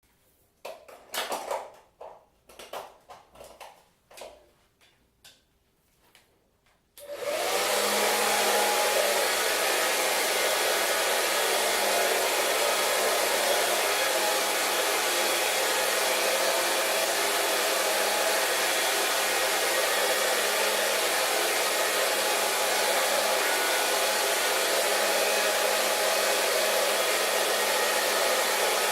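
A few brief knocks and rustles, then a hair dryer switched on about seven seconds in. It runs steadily at one speed: an even blowing rush of air with a constant motor hum underneath.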